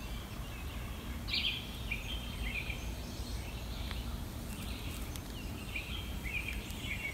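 Small birds chirping and singing in short repeated phrases, over a steady low background rumble.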